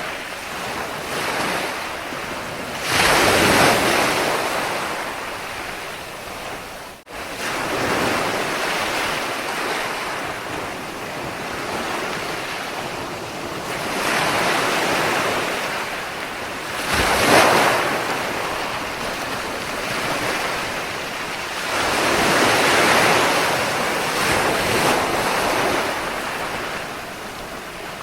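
Ocean waves breaking and washing on a shore, a steady hiss that swells and ebbs every few seconds, with two bigger breakers standing out. The sound dips out briefly about a quarter of the way in.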